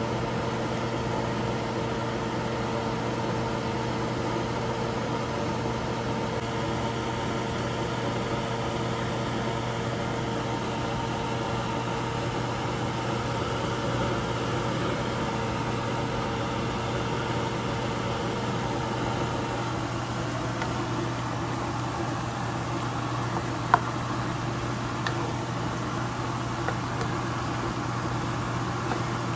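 A steady mechanical hum of a running kitchen appliance, one of its tones stopping about two-thirds of the way through. Near the end come a few light clicks of a spatula against the pan.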